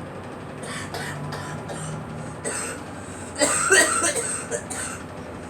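A girl coughing: a few light coughs, then a louder run of quick coughs about three and a half seconds in.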